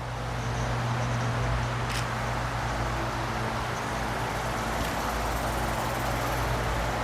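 Steady low hum over a constant background noise, with a faint click about two seconds in.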